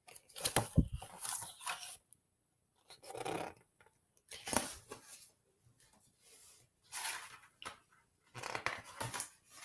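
Paper pages of a picture book being handled and turned, rustling in several short bursts.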